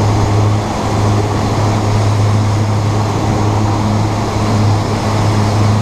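Boat motor running steadily at speed, a low even drone, with the rush of the wake churning behind the stern.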